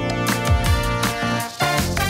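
Upbeat background music with a steady kick-drum beat.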